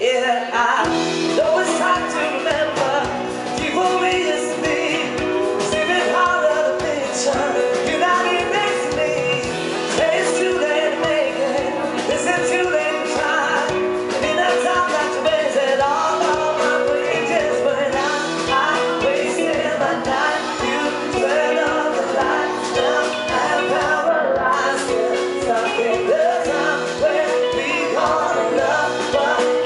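Pop music with singing.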